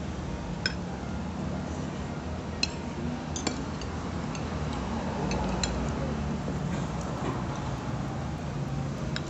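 Metal spoon and fork clinking and scraping against a ceramic plate during eating, a few sharp clinks scattered over several seconds, over a steady low background hum.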